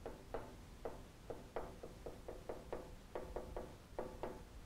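Dry-erase marker squeaking against a whiteboard as a line of maths is written: a run of short, slightly pitched squeaks, about four a second, pausing briefly now and then between symbols.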